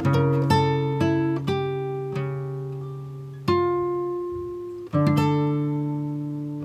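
Background music on acoustic guitar: single notes picked in a slow run, then two chords struck about halfway through and left to ring out.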